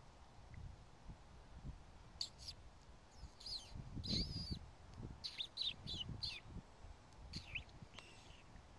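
A series of about a dozen short, high squeaky chirps, several falling in pitch, starting about two seconds in, over a low rumble of wind on the microphone.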